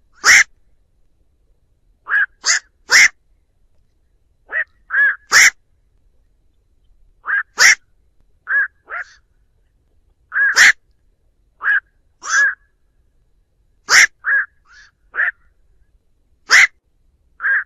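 Black-crowned night heron calls: short single calls, about twenty in all, coming in clusters of two or three a second or two apart, with clean silence and no background noise between them.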